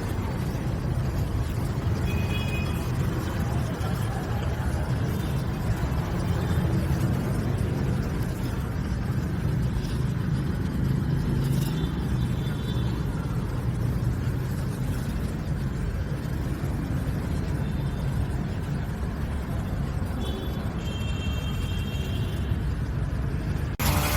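A steady low rumble, with a few brief high-pitched chirps over it.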